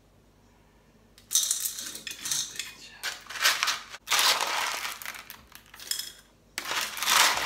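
Small white pebbles scooped by hand from a plastic tub and dropped into a glass terrarium bowl, clattering and clinking in several bursts starting about a second in.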